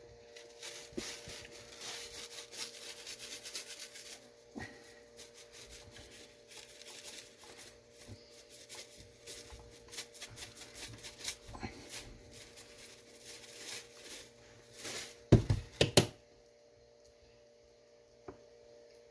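Montreal steak spice shaken from its shaker over raw steaks: a rapid, uneven rattle and patter with handling rustle. A few loud knocks come near the end.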